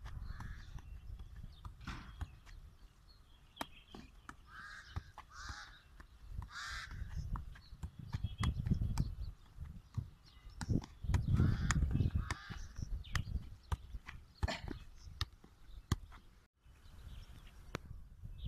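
Football juggling: a leather ball tapped repeatedly off foot, thigh and head, each touch a short sharp knock. Animal calls come in a few times, with a low rumble swelling around the middle.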